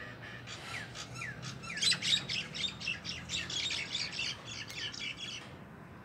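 Birds calling: a few short down-slurred chirps, then from about two seconds in a fast, loud run of harsh chattering notes that stops shortly before the end.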